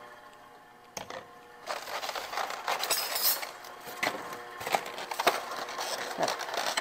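Handling noise on a kitchen counter: small knocks and clinks, then a plastic egg carton crackling as it is slid over and opened.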